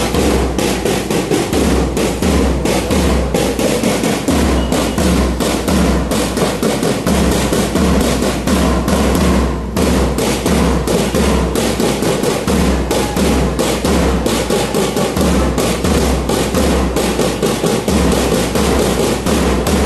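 Drums beating a steady marching rhythm, with sharp strokes about three or four times a second over deeper bass thumps.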